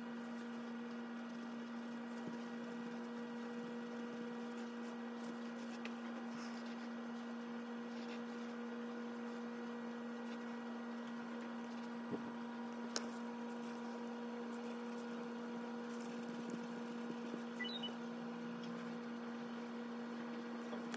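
A steady electrical hum, one low tone with fainter higher overtones that never changes, with a faint hiss beneath and a couple of light ticks in the middle.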